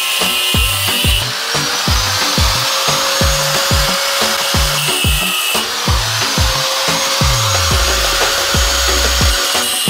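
Background electronic music with a steady kick-drum beat, held bass notes and rising synth sweeps.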